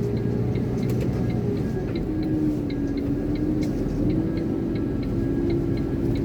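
Iveco concrete mixer lorry's diesel engine running at low revs, heard from the cab, with a wavering hum over the rumble. Above it, an even run of short high beeps about three a second: the seatbelt warning, the belt being off.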